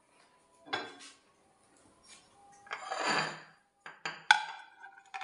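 Tableware being handled on a stone countertop: a ceramic dinner plate is set down with a few sharp clinks, the loudest about four seconds in. A brief scuffing sound comes just before.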